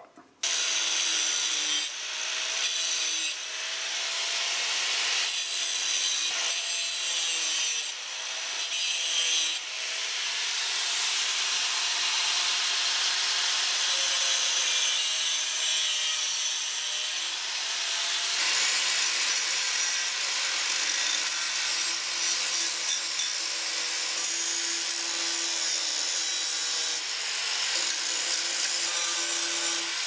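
Angle grinder with a thin cut-off wheel cutting into a steel suspension control arm. The grinding is continuous, with a few brief breaks in the first ten seconds, and its motor pitch sags and recovers as the wheel bites.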